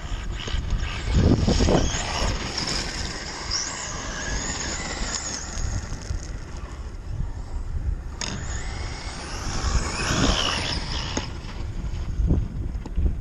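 Traxxas E-Maxx RC monster truck driven by a 2200 kV brushless motor on 6S, running on loose gravel: a high electric motor whine rises and falls as it accelerates and backs off, over the crunch and spray of gravel under the tyres. There are two main bursts of throttle, one a couple of seconds in and another about eight seconds in.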